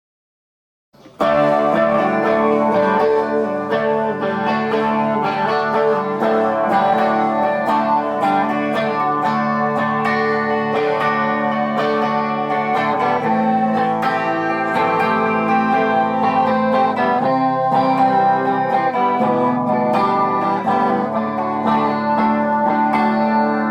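Electric guitar music, starting suddenly about a second in after dead silence and then playing continuously at a steady level with sustained, ringing chords and notes.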